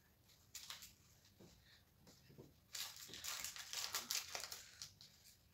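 Plastic biscuit wrapper being cut with scissors and then pulled open by hand. A few light snips early on give way to dense crinkling from about halfway through until near the end.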